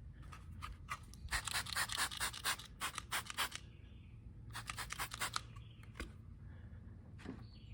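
Soapy water being worked onto a riding-mower tire in quick rasping strokes, about five a second, in two runs with a pause between, to find a leak by its bubbles.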